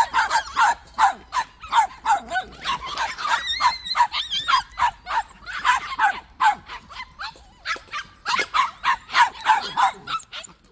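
Young dogs barking in short, high yaps, over and over, about two or three a second, with a short lull about two-thirds of the way through.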